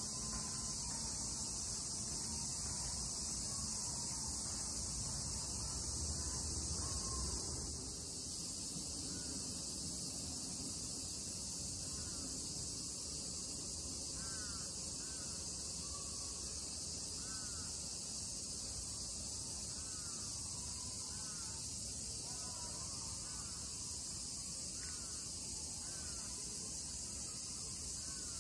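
Steady high-pitched drone of insects, with short chirping bird calls scattered through the second half.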